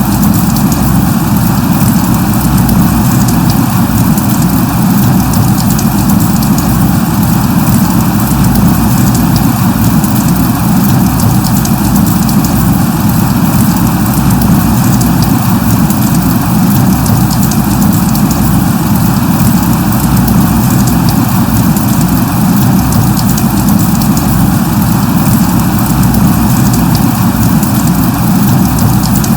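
Light rain falling steadily: an even hiss of many small drops with a strong low rumble underneath, unchanging throughout.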